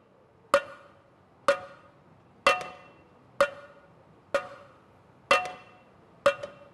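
Sparse percussion in a film score: seven sharp, ringing strikes about a second apart, a few of them struck twice in quick succession.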